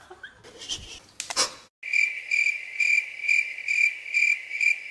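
Crickets chirping: a steady high trill that pulses about twice a second, starting abruptly about two seconds in. Before it there is soft rustling with a couple of clicks.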